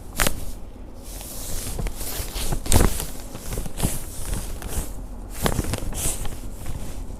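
Handling sounds of a chiropractic session: rustling of clothing and hands on the patient's body, with a few sharp clicks, the loudest a little under three seconds in.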